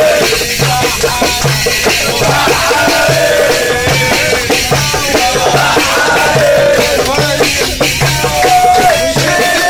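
A crowd singing and chanting together in a festive zaffa (Egyptian wedding-procession) style, over a steady drum beat of about two strokes a second, with hand clapping.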